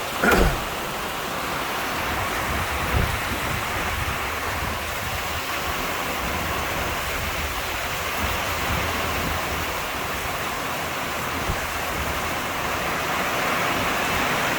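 Heavy rain falling hard on a tin (metal) roof, a loud steady hiss. A brief loud thump with a quick falling sweep comes just after the start, and a smaller thump about three seconds in.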